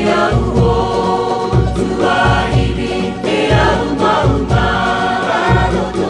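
Cook Islands Polynesian song: several voices singing together over a steady, regularly repeating bass beat.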